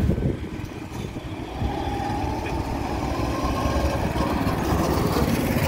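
Small go-kart engines running on the track, growing louder about a second and a half in as a kart comes close.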